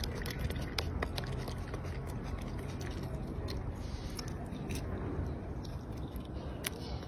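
Rhesus macaque biting into and chewing small fruits, with scattered sharp cracks and clicks as it bites and peels them, over a steady low rumble.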